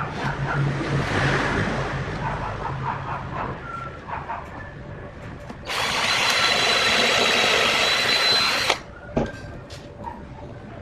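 An electric power tool runs loudly for about three seconds with a steady high whine, starting and stopping abruptly; before it a softer grinding noise rises and fades, and a few knocks follow.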